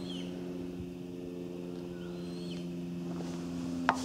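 Narrowboat engine idling with a steady, even hum. Birds chirp faintly, and there is one sharp click near the end.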